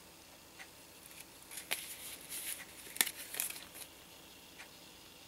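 Handmade paper cards being handled and opened: quiet rustling of card stock with a few light clicks and taps.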